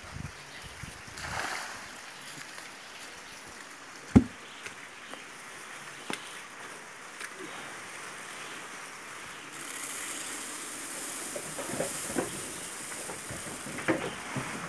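Shelled corn handled and poured from a sack into a wooden pig trough: a single thump about four seconds in, then a steady high hiss of grain running for several seconds near the end.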